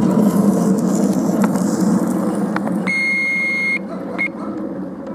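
Miniature railway train running close past: a rumble of wheels on the rails with sharp clicks at the rail joints, fading toward the end. About three seconds in, a high steady beep-like tone sounds for about a second, then once more briefly.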